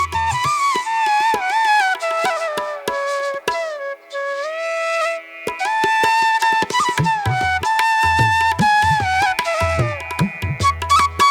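Background music: a flute melody over light percussion, with a low bass part that drops out for several seconds and comes back near the end.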